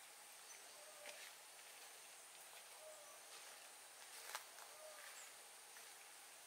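Near silence: faint countryside ambience with a steady high insect-like hiss and a short animal call repeating about every two seconds, plus a few faint ticks.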